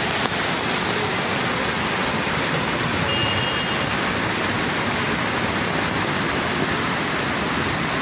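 Monsoon-swollen woodland waterfall: a heavy torrent rushing steadily and loudly over rocks.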